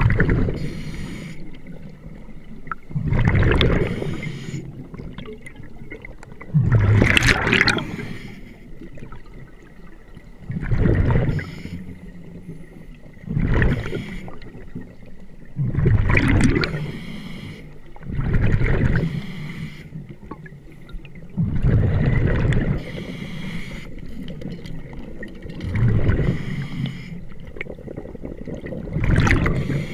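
Scuba breathing through a regulator underwater: a burst of bubbling exhaust about every three seconds, about ten in all.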